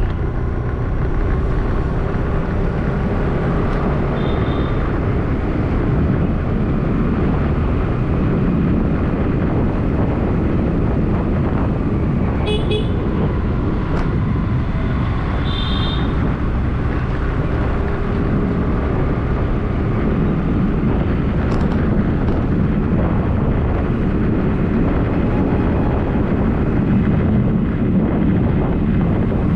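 Steady road traffic noise from a moving vehicle, with short car horn toots a few times: around 4, 12 and 16 seconds in.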